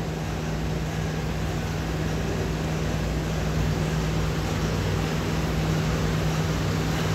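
A steady low machine hum over an even hiss, unchanging throughout.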